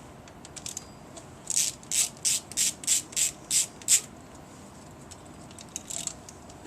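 Ratchet wrench with a T30 Torx bit clicking through short back-and-forth strokes, about three a second, backing out a screw that holds a Saab direct ignition cassette. Eight quick strokes run from about a second and a half in to about four seconds, followed by a few lighter clicks near the end.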